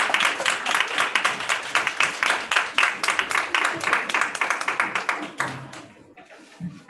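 Audience applause, many hands clapping densely, thinning out and dying away to a few scattered claps near the end.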